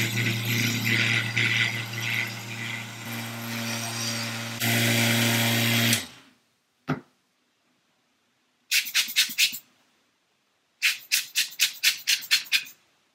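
Flexible-shaft pen rotary tool running and grinding plastic off a scale-model engine block, its pitch shifting twice, then switched off about six seconds in. After a click, a hand tool works the plastic in two runs of quick strokes, about six and then about ten.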